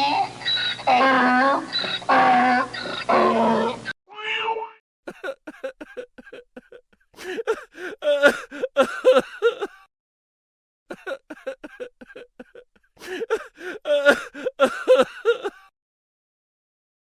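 Human crying sound effects: a drawn-out wailing cry that cuts off abruptly about four seconds in, then a separate recording of broken sobbing in quick, catching breaths, in two long bouts with a short pause between.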